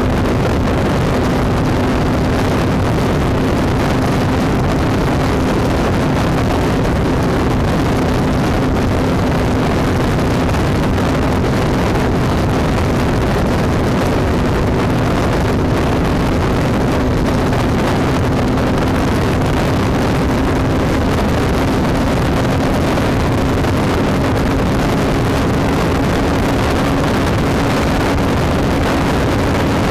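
Motorcycle cruising at highway speed: a steady engine drone under heavy wind and road noise on the microphone, the engine note climbing slightly near the end as it speeds up.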